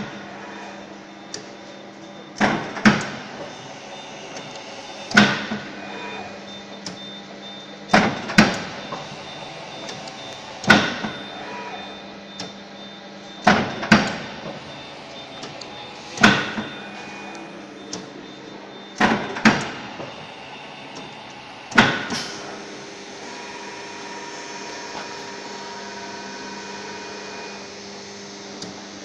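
Kyodo 115 paper guillotine cutter cycling with no paper, each stroke a sharp clunk, often doubled, about every two to three seconds over the steady hum of its motor. The strokes stop about 22 seconds in and the motor runs on with a steady hum.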